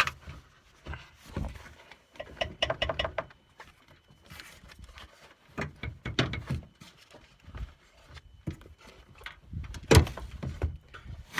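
Plastic air filter housing of a GMC Sierra being worked loose from its rubber grommets and lifted out: scattered plastic knocks, rattles and scrapes, with a run of quick clicks about three seconds in and one sharp loud knock near the end.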